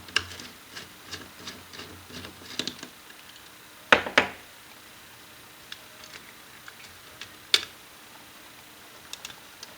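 Light clicks and clinks of a wrench or socket and loose small metal hardware being handled while the amp's fasteners are undone, with two sharp knocks about four seconds in and another sharp knock a few seconds later.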